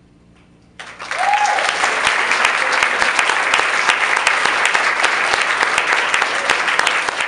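Audience applauding, a dense clatter of many hands that starts suddenly about a second in.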